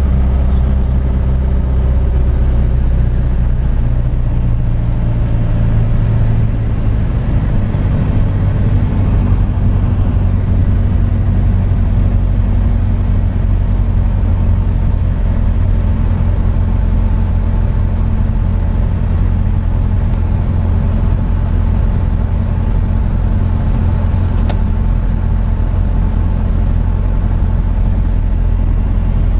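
An engine running steadily, a loud low drone whose note shifts about seven seconds in, with a faint higher whine joining later.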